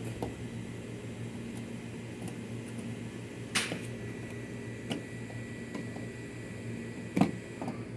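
A few light clicks and knocks as a washing machine's timer switch is handled and fitted into place by hand, the loudest about three and a half seconds in, over a steady low hum.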